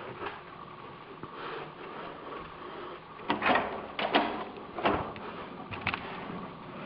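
Footsteps in a stairwell: a few sharp thumps about a second apart, starting about three seconds in, over a steady room hum.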